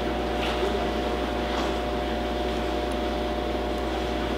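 A steady, even hum: a constant low drone with a fainter higher tone above it, unchanging throughout.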